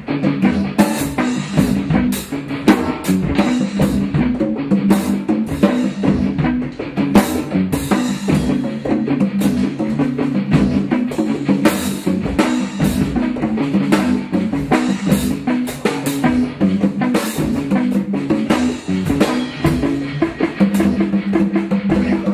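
Music driven by a drum kit, with bass drum and snare hits keeping a steady beat over a repeating low pitched line.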